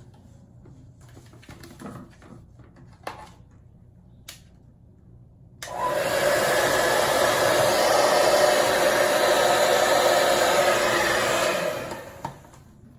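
Handheld hair dryer switched on about six seconds in, blowing steadily for about six seconds, then switched off and winding down. Faint rustling and clicks come before it.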